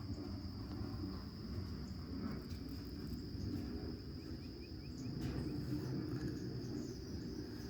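Steady high-pitched insect trill, like crickets, over a low rumbling background, with a quick run of about five faint high chirps about four seconds in.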